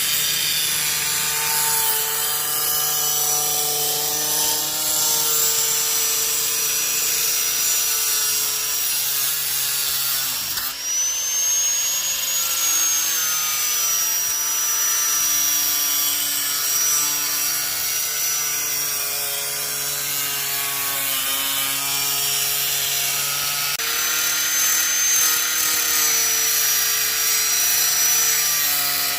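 Electric power saw cutting out an access door opening in a box panel, running steadily with a high whine. It stops briefly about ten seconds in and starts again with a rising whine.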